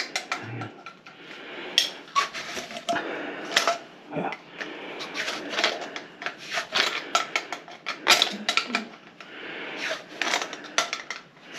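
Irregular clatter, knocks and clicks of hard parts being handled at a kitchen sink while its drain and P-trap are worked on.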